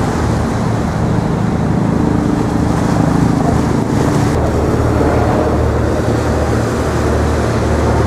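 Steady low engine rumble from motor traffic or a boat, with wind buffeting the microphone. A faint steady hum sits on top for a couple of seconds around the middle.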